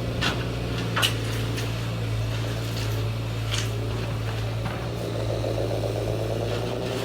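A motor running steadily with a low hum, its higher whine dipping and then rising in pitch, with a few sharp clicks.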